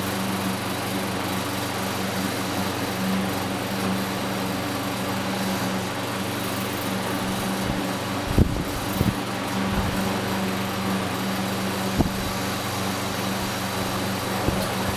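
Early-to-mid-1950s Belco 16-inch box fan running steadily on low speed: a steady motor hum under the rush of air, with a few short knocks about eight and twelve seconds in. The fan rattles a little, which the owner puts down to worn motor bearings or a blade set loose on its hub.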